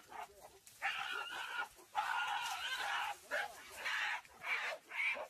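A rapid series of high-pitched screams in short bursts, some brief and some held for about a second.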